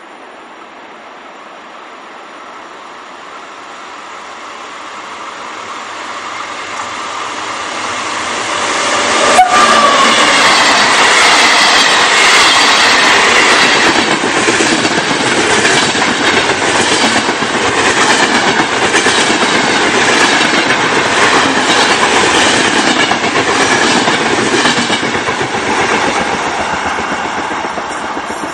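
Electric-hauled express passenger train approaching and then passing close at speed. It builds steadily, turns suddenly loud as the locomotive goes by about a third of the way in, and then the coaches' wheels clatter rhythmically over the rail joints, easing off near the end.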